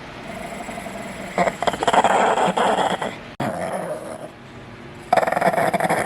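A dog growling at another dog in rough bursts, about one and a half seconds in and again about five seconds in, as a dog fight is about to break out. The sound cuts off suddenly about three and a half seconds in.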